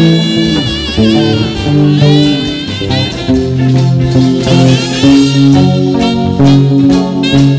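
Jazz-style music: a Squier Telecaster Thinline electric guitar played over a backing track of bass and drum kit, with a lead melody sung out in long notes with vibrato.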